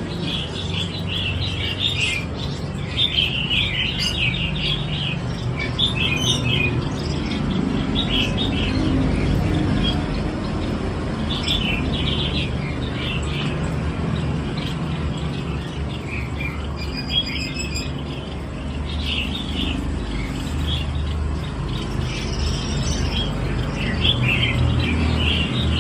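Birds chirping in short clusters every second or two, over a steady low rumble.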